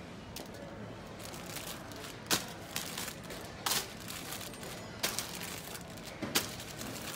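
Faint handling sounds in a shop aisle: scattered short clicks and crinkles, roughly one every second or so, as packets on a rack and a shopping trolley are handled.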